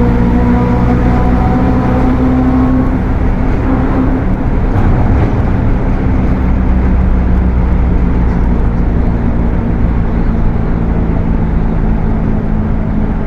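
Mercedes-Benz OF-1721 bus's diesel engine running under way, with its transmission droning loudly. The steady tones shift about three seconds in and are rougher for a couple of seconds before settling again.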